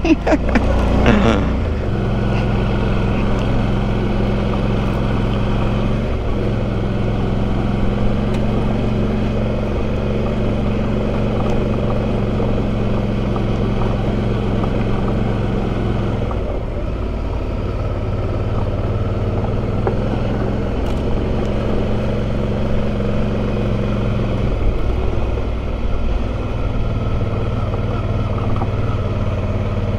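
Motorcycle engine running steadily while riding, heard from the rider's position. Its note shifts three times along the way.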